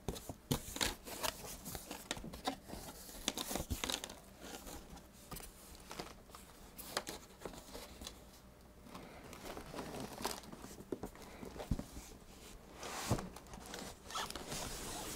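Cardboard shipping box being handled: flaps rustling and scraping, with scattered light knocks and crinkles, as the box is opened and turned upside down to slide the unit out.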